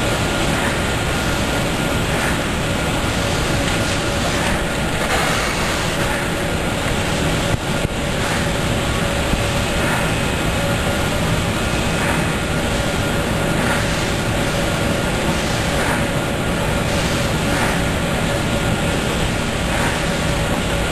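Automatic through-hole component insertion machine running: a loud, steady mechanical noise with a faint steady hum, and light strokes roughly once a second.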